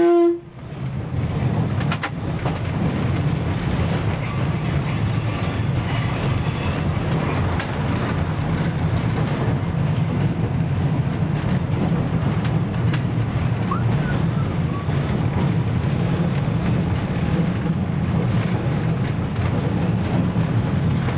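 A short, loud horn blast from a DR class 771/772 'Ferkeltaxe' diesel railbus, then the railbus running along the track: a steady low drone of engine and wheels on the rails, with occasional clicks.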